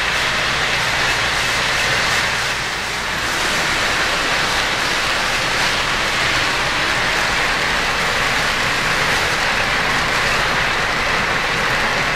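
O-gauge model freight train rolling steadily along three-rail track, a continuous whirring rattle of metal wheels on the rails that eases slightly about three seconds in.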